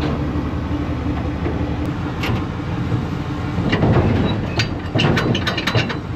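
An engine running steadily, with a run of short knocks and clicks in the second half.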